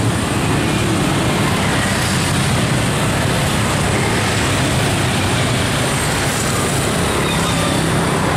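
Steady street traffic noise: many motorcycle engines and some car engines running together in a constant din.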